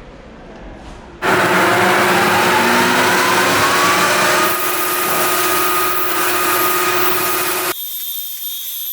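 An electric power tool's motor starting up about a second in, its whine rising in pitch for a few seconds and then holding steady over a loud rushing hiss. It cuts off abruptly near the end, leaving a quieter machine hum.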